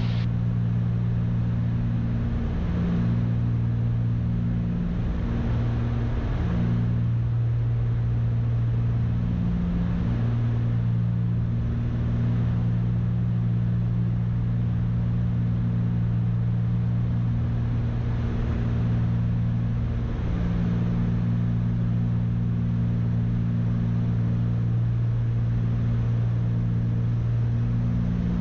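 Cessna 310's twin piston engines and propellers droning steadily on final approach, heard from inside the cockpit. The low hum holds an even pitch throughout, with a light rush of air noise over it.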